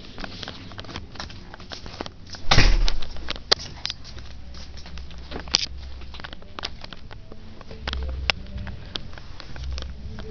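Handling noise from a phone being carried and moved about: rubbing and scattered sharp clicks, with one loud bump about two and a half seconds in, over a low rumble.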